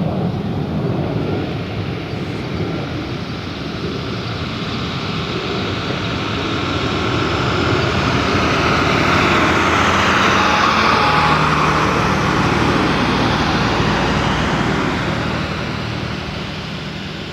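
Alpha Jet trainers' Larzac turbofan engines passing in a flyby: a jet roar that swells to its loudest about ten seconds in, with a whine that drops in pitch as the jets go past, then fades.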